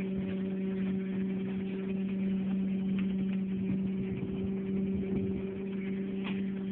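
A steady, unchanging low hum over an even hiss of wind and water.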